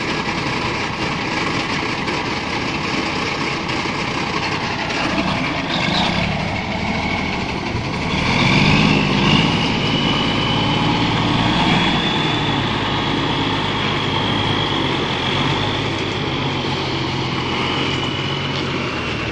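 Diesel engine of a loaded wood-chip semi truck running as the rig pulls through mud. The engine works harder and grows louder about eight seconds in, and a high steady whine joins it for several seconds.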